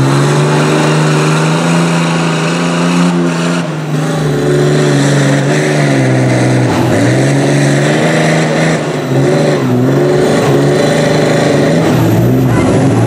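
Lifted Dodge Ram mud truck on tractor tires revving hard as it churns through deep mud and water. The engine note dips and climbs several times as the throttle is worked, over a constant wash of mud and water spraying from the tires.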